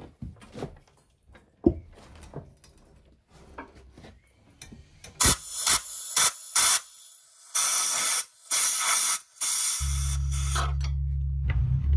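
Compressed-air blow gun fired in several short bursts of hissing air, then in longer bursts of about a second each. Before the blasts, scattered knocks and clicks; near the end, background music with a low steady tone comes in.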